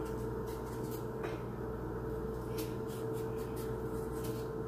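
A kitchen knife cutting a bell pepper held in the hand: a few faint crisp cuts scattered through, over a steady hum.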